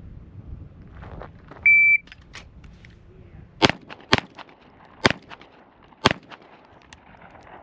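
A shot timer gives one short, high start beep. About two seconds later come four pistol shots, the first two close together and the last two about a second apart.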